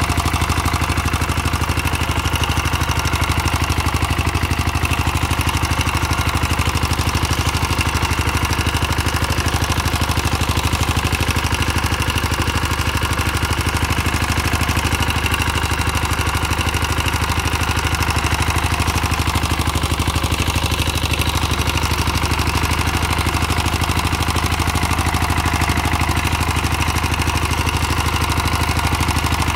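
Rotary tiller engine running steadily while the tiller works the soil.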